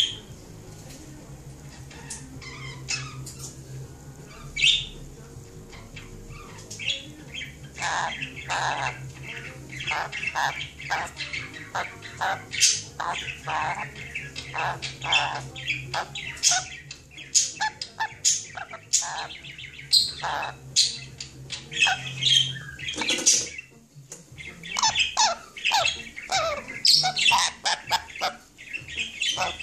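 Sun conure chattering: short squawks and chirps, scattered for the first several seconds, then coming fast and almost without a break, with a brief pause about four-fifths of the way through.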